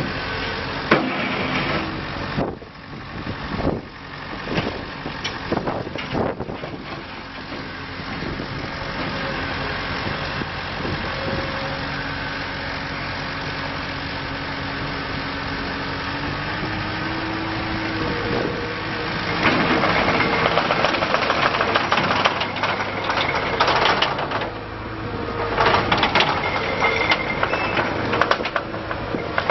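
Takeuchi TL230 compact track loader's Kubota diesel engine running, with several clanks and knocks in the first few seconds. The engine pitch steps up about sixteen seconds in, and from about two-thirds of the way through it runs louder and rougher, with a steady high whine over it.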